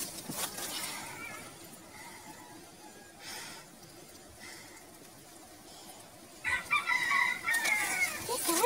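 A rooster crows once, a single call about two seconds long that starts about two-thirds of the way in and drops in pitch at its end.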